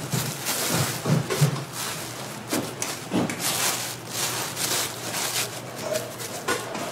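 Clear plastic film crinkling and rustling as gloved hands press and smooth it over food in a steel tray, in quick irregular bursts.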